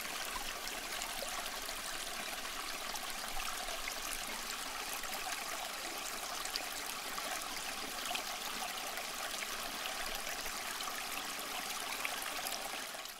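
Water from a small tabletop waterfall fountain trickling and splashing steadily. It stops abruptly just before the end.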